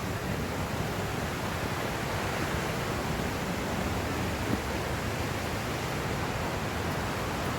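Steady rushing of a creek or waterfall, an even hiss with no change in level.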